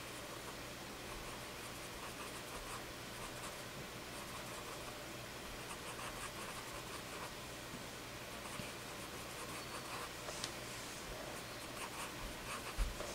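Cotton swab rubbing over graphite on drawing paper: a faint, soft scratching as the shading is blended. A couple of light knocks near the end.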